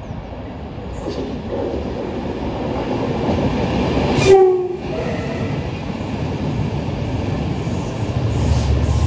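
A passenger train approaching and passing close by, its running rumble building steadily. It sounds one short horn blast a little over four seconds in.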